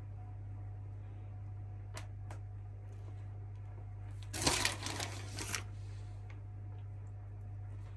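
Grated cheese being pinched and scattered by hand onto a pizza: a short cluster of rustling and pattering about halfway through, with a few faint ticks before it. A steady low hum lies underneath.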